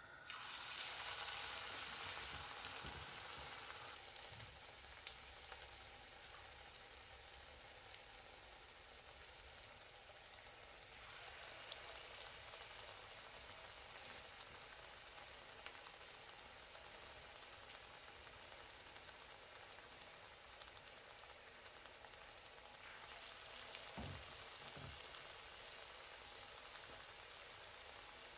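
Falafel patties of ground chickpea and parsley shallow-frying in hot oil in a non-stick pan: a steady sizzle. It swells as each new patty goes into the oil: at the start, again about eleven seconds in, and once more about twenty-three seconds in. A couple of soft knocks come just after the last swell.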